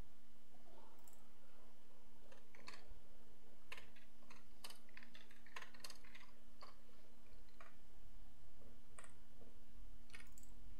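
Computer mouse clicks and keyboard keystrokes, irregular and clustered mostly in the middle stretch, over a steady low electrical hum.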